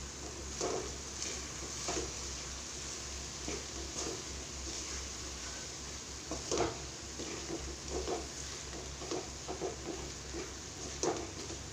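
Pieces of dried stingray frying in a thick spiced masala in a pan, sizzling steadily while a spoon stirs and scrapes the pan in irregular strokes.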